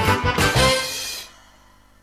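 Upbeat cartoon theme music with a steady beat that ends about a second in on a held note, then falls away to a faint background.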